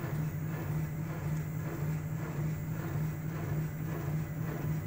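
Shock absorber test bench running a test cycle, its drive giving a steady low hum as it strokes a shock absorber at the 100 RPM test speed.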